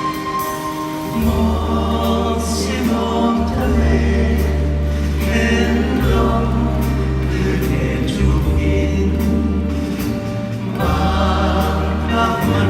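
Live band music, loud, with long held bass notes and chords that change every couple of seconds, and voices singing along.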